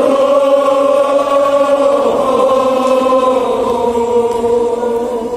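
Men's voices chanting a Kashmiri marsiya, the Shia elegy of mourning, together. They hold long, drawn-out notes whose pitch sinks slowly, easing off in loudness near the end.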